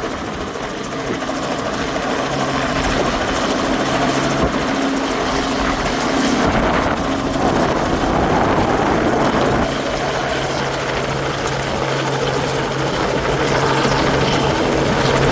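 Helicopter's rotor and engine running steadily close by as it sets down on the helipad: a continuous rush with a steady low hum.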